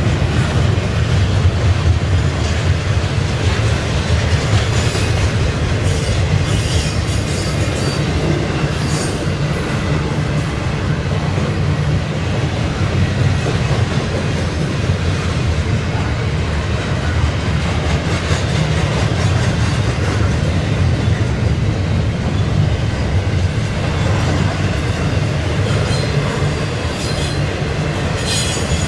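Double-stack intermodal well cars rolling past: a steady, loud low rumble and rattle of steel wheels on rail, with a few brief high wheel squeals.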